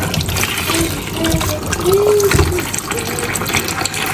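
Tap water running into a bowl of peeled potatoes in a sink, with hands swishing and rubbing the potatoes in the water.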